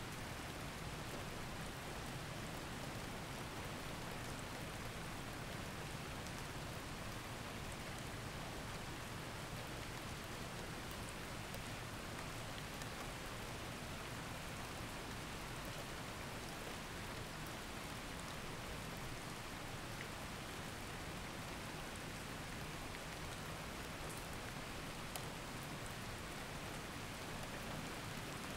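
Steady rain, an even hiss with a few faint drop ticks.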